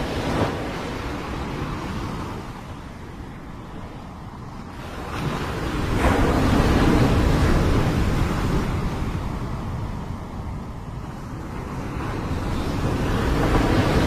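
Small sea waves breaking and washing up a pebble beach, in slow surges: a larger wave breaks about five seconds in and is loudest for a couple of seconds before fading, and another builds near the end.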